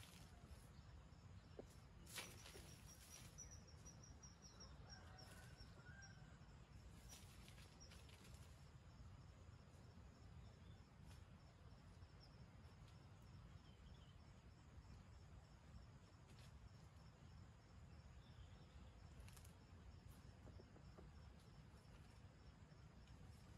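Near silence: faint outdoor ambience with a steady low rumble, a few faint clicks and occasional faint chirps.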